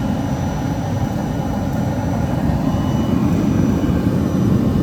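Steady low roar of the carbonization furnace's preheating burner flame and fan blower running, growing slightly louder toward the end.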